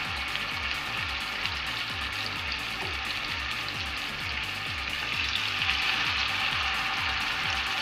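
Marinated chicken breast sizzling in an oiled grill pan over a low flame, a steady frying hiss. It gets a little louder about five seconds in as a second breast goes into the pan.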